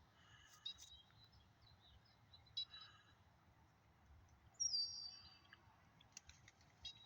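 Faint chirps and tweets of small songbirds: a few short high calls, with one clearer whistled note sliding slightly downward about two-thirds of the way through.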